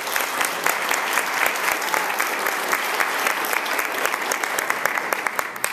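Congregation applauding, a dense spell of many hands clapping that cuts off at the very end.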